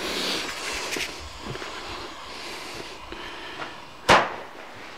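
A single sharp firework bang about four seconds in as the first shot of the Klasek Frankenstein firework fires, after a few seconds of low rustling hiss.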